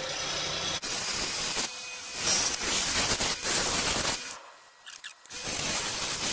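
Turning tool cutting a spinning persimmon blank on a wood lathe, throwing off shavings. The cutting noise comes in stretches, with brief breaks and a pause about four seconds in before the cut resumes.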